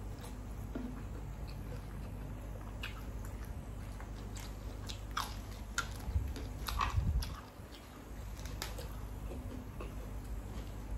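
A person chewing and biting food close to the microphone, with scattered small crisp clicks and a louder run of chewing about six to seven seconds in.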